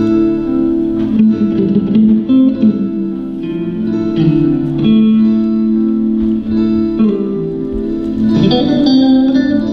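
Slow guitar music, single plucked notes struck every second or so and left to ring over held lower notes.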